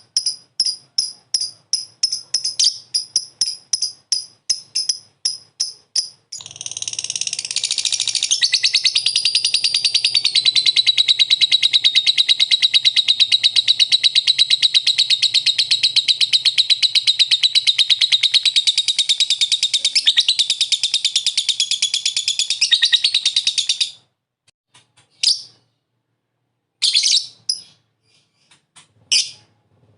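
Lovebird singing. First comes a quick string of sharp high chirps, about four a second. From about six seconds in, these run together into one long unbroken rapid chatter, the 'ngekek', which lasts nearly twenty seconds and then breaks off. A few scattered chirps follow near the end.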